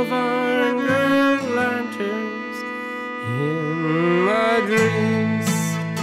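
Cello and acoustic guitar playing an instrumental passage together: long bowed cello notes over the guitar, with a slow upward glide in pitch around the middle.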